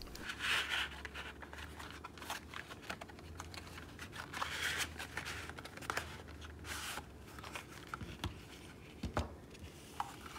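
Cardboard paint box and plastic trays of watercolor paint tubes being handled: soft rustling and scraping of cardboard with small clicks, and a few light knocks in the last few seconds as the trays are set down on a wooden table.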